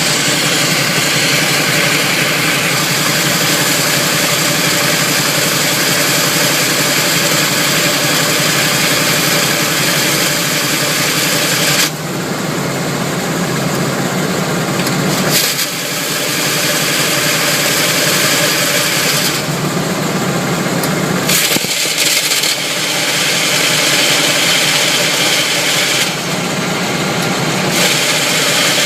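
Chevrolet Camaro engine idling with a harsh grinding rasp over it that drops away and comes back several times. The owner suspects the flywheel teeth, the starter or the torque converter.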